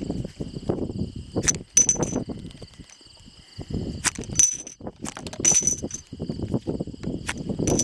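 Sharp gunshots or hits, about eight of them spaced unevenly, several followed by a brief high metallic ring, over a steady chorus of insects buzzing.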